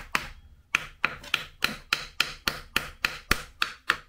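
Hammer tapping on the side cover of a Kawasaki Zephyr 550 engine: a rapid, even series of sharp knocks, about three to four a second, after a short pause near the start.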